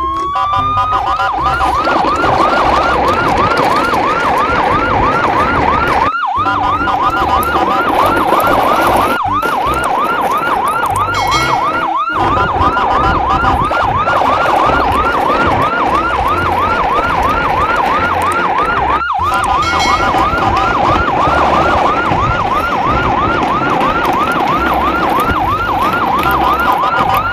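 Emergency-vehicle siren in fast yelp mode, its pitch sweeping up over and over several times a second, broken by a few brief gaps.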